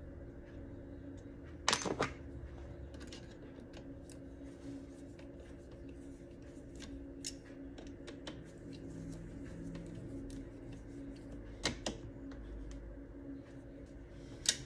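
Small metal clicks and taps of a hex driver turning screws into scope ring mounts on a rifle's rail, with two sharper double clicks, about two seconds in and again near the end, over a steady hum.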